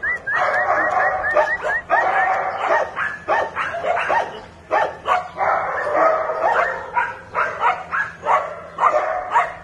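Several dogs barking and yipping, the calls coming thick and fast and overlapping. There is a quick run of short, high, rising chirps in the first two seconds.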